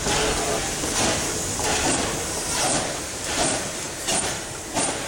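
FS Class 625 2-6-0 steam locomotive pulling away under steam, its exhaust chuffing in a steady beat of about three beats every two seconds, growing a little fainter as it draws off.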